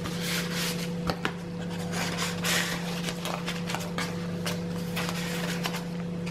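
Paper and card rustling, with soft clicks and swishes, as tags are pulled from pockets and thick pages of a handmade junk journal are turned, over a steady low hum.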